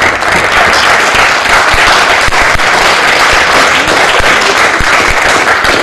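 An audience applauding, loud and dense, many hands clapping at once.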